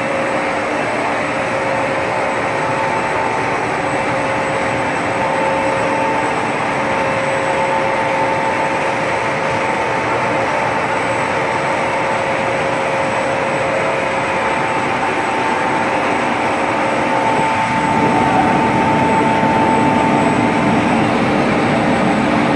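Textile finishing machinery running with a steady mechanical noise and a couple of constant whining tones held throughout; it grows slightly louder a few seconds before the end.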